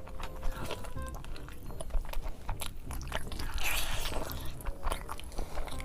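Close-miked eating of biryani: bites and chewing with many short, sharp crunches.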